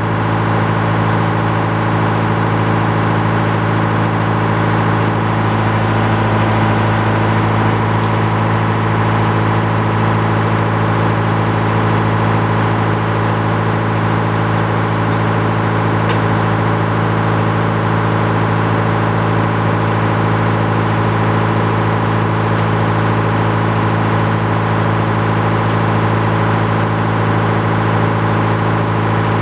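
An engine idling steadily: a constant low hum that does not change in speed or level.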